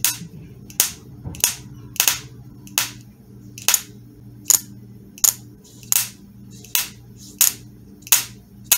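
Toyota ignition coil pack firing into an inline spark tester: a sharp spark snap about every 0.7 seconds as its trigger wire is pulsed on a battery. The sparks are strong, the sign of a healthy coil.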